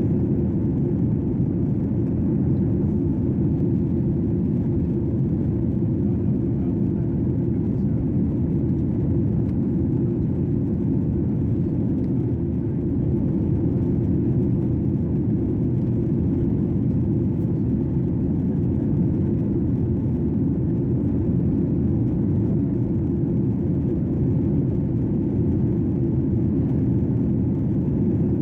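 Airplane cabin noise in flight: engine and airflow noise making a deep, even rumble that holds steady throughout.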